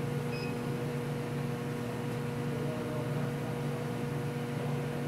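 Steady electrical hum of running mechanical-room equipment, with one short faint beep just after the start.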